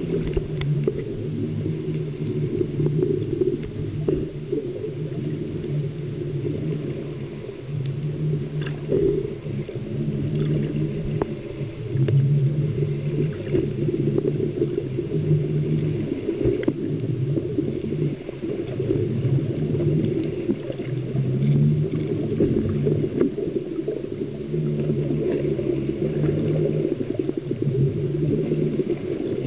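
Underwater ambience picked up through the water: a steady low droning hum that swells and fades every few seconds, with scattered faint clicks.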